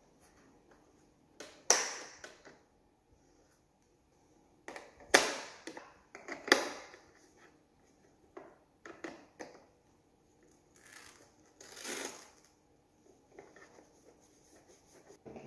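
Sharp plastic clicks and knocks at irregular intervals, with rustling between them, as the side brush and the fabric mop pads are pressed into place on the underside of a DreameBot L10s Ultra robot vacuum-mop.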